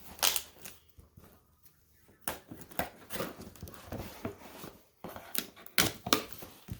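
A small cardboard box being opened by hand: irregular clicks, scrapes and rustles of cardboard and packing.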